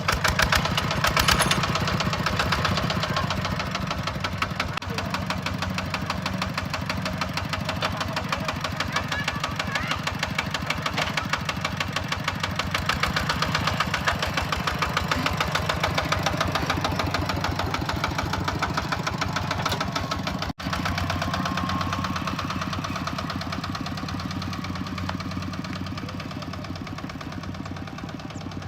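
Engine of rice-harvesting machinery running steadily with a rapid, even beat. The sound drops out for an instant about two-thirds of the way through.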